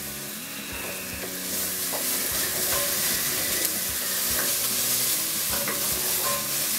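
Onion, sausage and fennel sizzling and frying in a very hot pot, the sizzle growing louder about a second and a half in, while a wooden spoon stirs with a few light knocks against the pot.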